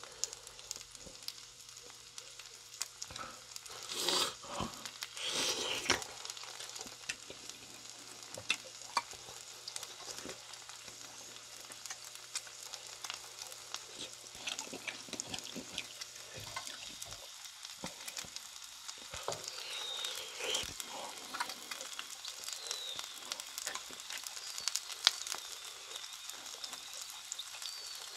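Chicken skewers (yakitori) sizzling as they cook, a dense, even crackle of tiny pops, with a few louder noises about four to six seconds in and again around twenty seconds.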